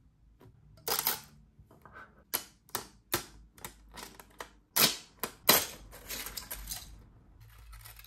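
A 3D-printed plastic fidget toy being popped off a flexed Prusa i3 MK3 spring-steel print sheet: a string of sharp clicks and cracks as the print breaks free of the bed, loudest about five seconds in.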